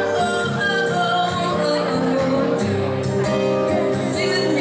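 A woman singing live while strumming an acoustic guitar, her voice holding long notes over steady chords.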